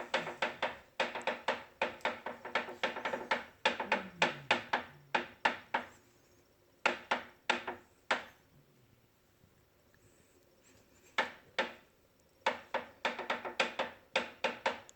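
Bowflex VeloCore exercise bike clicking rapidly and evenly, several clicks a second, as the pedal is turned by hand. The clicks stop about six seconds in, come back as a few single clicks, and start again near the end. The noise comes from a fault in the pedal and flywheel area that was cured by replacing the flywheel.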